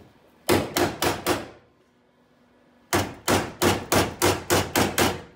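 Hammer striking the crumpled steel rear quarter panel of a Nissan S13, beating the damaged bodywork straight: four sharp blows, a pause, then a quick run of about ten blows at roughly four a second.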